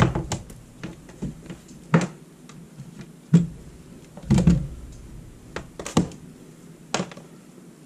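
Test leads being handled on a desk, their banana plugs and clips giving a handful of sharp, irregularly spaced clicks and knocks against the desk and multimeter.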